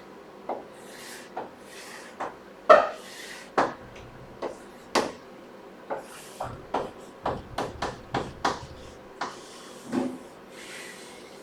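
Writing and drawing by hand: irregular sharp taps of a pen or marker tip striking the surface, mixed with short scratchy strokes, the longest stroke near the end.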